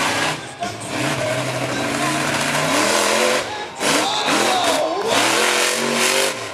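Monster truck engine revving hard, its pitch climbing and falling again and again, with a brief dip about four seconds in.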